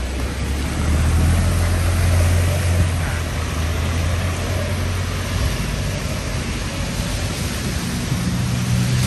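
Street traffic on a wet road: a vehicle's engine running close by as a steady low hum that fades about five seconds in, over a constant hiss of tyres and rain, with another engine hum rising near the end.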